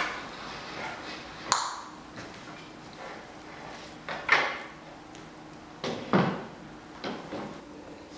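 A handful of separate short, sharp knocks and clatters, spaced a second or more apart, over a faint steady room hum.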